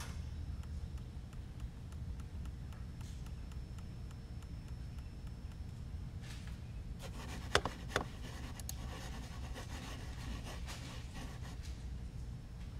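Handling noise on a workbench: faint rubbing and two sharp clicks in quick succession a little past halfway, over a steady low hum.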